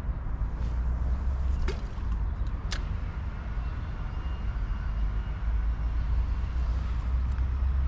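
Steady low rumble of wind buffeting the microphone, with two brief sharp swishes about two and three seconds in.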